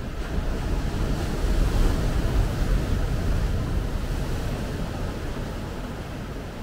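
Ocean surf: a wave breaking against shoreline boulders and on the sand, a rushing crash that swells to its loudest about two seconds in and then slowly fades as the foam washes up the beach.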